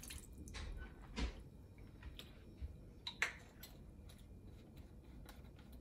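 The tail of a soy sauce pour from a plastic measuring cup onto sliced raw beef in a stainless steel bowl, followed by a few faint clicks and light knocks as the cup is handled and set aside. The loudest knock comes about three seconds in.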